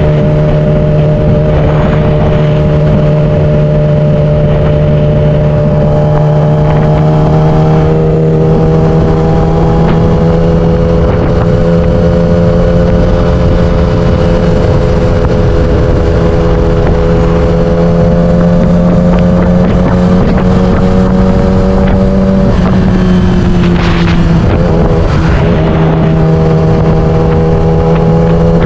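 Yamaha YZF-R6 inline-four engine running steadily under way, its pitch slowly climbing, dipping briefly a little after twenty seconds, then rising again. Wind buffets the camera's built-in microphone.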